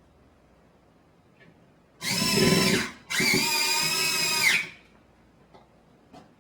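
Power drill driving mounting screws into a door frame: two short runs of a steady whine, about a second and then a second and a half long, the second rising as the drill spins up and dropping away as it stops.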